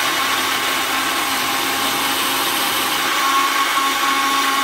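Countertop blender running steadily, its motor whirring as it blends a yogurt, berry and ice shake.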